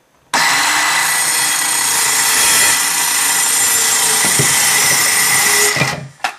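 Black & Decker Firestorm cordless circular saw crosscutting a wooden board: the motor starts suddenly, runs steadily at full speed through the cut, then winds down near the end.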